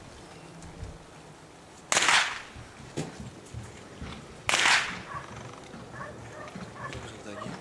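Two sharp cracks from a blank starter pistol, about two and a half seconds apart, each trailing off in a short echo. These are the gunfire test that is part of IPO obedience heeling.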